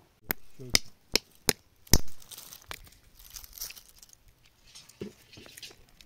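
A hand-held stone knocking apricot pits against a rock to crack them open: five sharp cracks in quick succession, then a crunching, rustling scrape of broken shells and grit.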